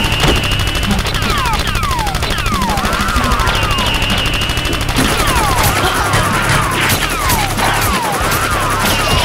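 Action soundtrack: a looping music track of repeated falling and swooping synth sweeps, over a dense rattle of rapid gunfire sound effects. From about five seconds in, sharper single shots cut through.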